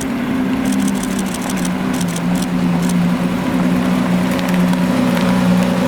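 A car engine running at steady low revs, its pitch wavering slightly. A light, rapid ticking sounds over it for the first three seconds or so.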